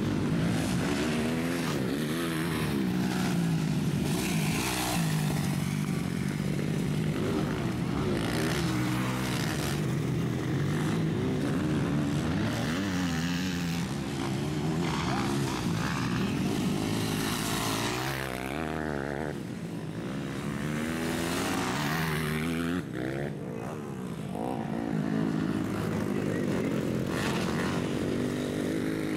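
MX2 motocross bikes racing on a dirt track, engines revving hard and shifting through the gears, the pitch climbing and dropping again and again.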